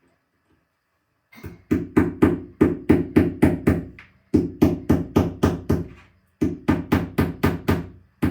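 Hammer tapping wall anchors into drilled holes in the wall: sharp knocks about three a second, starting about a second and a half in, in three runs with short pauses. The anchors are bending instead of going in.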